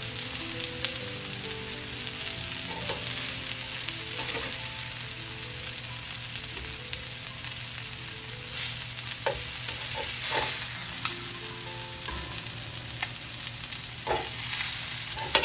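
Chicken drumsticks sizzling steadily on a hot ridged stovetop grill pan. A few clicks and scrapes of metal tongs against the pan come around the middle and again near the end, as pieces are lifted off.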